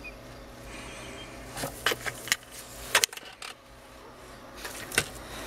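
A handful of sharp clicks and scratches, the loudest about three and five seconds in, as a young blue-tailed monitor lizard clambers against the camera and the hand holding it. A low steady hum runs underneath.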